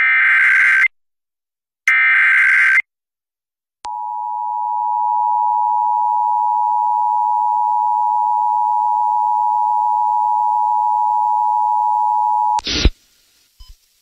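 Emergency Alert System tones opening a severe thunderstorm warning. Two bursts of about a second each of the SAME header's digital warble come first. Then the steady two-tone attention signal (853 and 960 Hz) sounds for about nine seconds and cuts off with a brief click.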